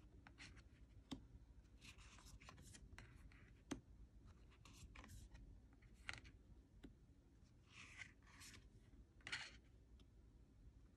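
Faint swishes of thick, smooth-finish cardstock oracle cards sliding off the deck one at a time as they are flipped through, every second or two, with a few light clicks.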